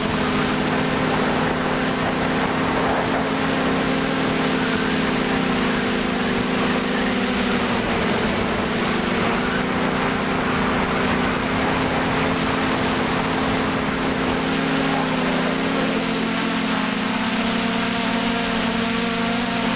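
Drone's electric motors and propellers humming steadily, heard from the camera on board, with a hiss of rushing air.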